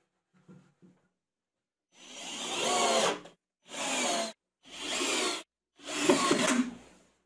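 Cordless drill boring holes through a wooden batten in four runs of about a second each, the motor pitch wavering under load, with short pauses between. A few light knocks come before it, as the wood is set against the wall.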